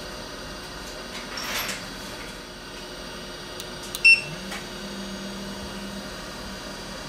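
A hot-air rework station beeps once, then its fan spins up, its hum rising briefly in pitch and then holding steady. A short hiss comes about a second and a half in.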